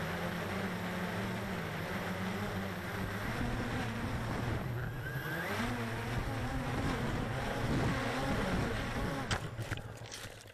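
Cheerson CX-20 quadcopter's electric motors and propellers whining steadily, their pitch rising and falling as the craft rocks while it comes in to land. Near the end come a few sharp knocks as it hits the ground hard, and the motor sound dies away.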